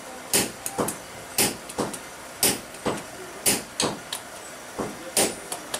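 Hand-forging blows on red-hot steel on an anvil, about two a second, in a heavy-then-light rhythm of sharp metallic strikes.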